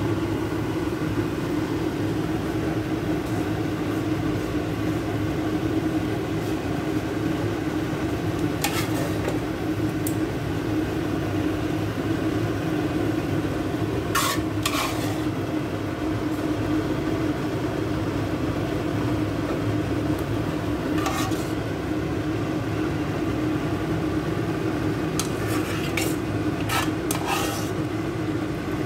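Noodles and sauce sizzling steadily on a hot sizzling plate as sauce is ladled over, with a steady low hum underneath. A ladle clinks against the plate a handful of times, a few seconds apart, several in quick succession near the end.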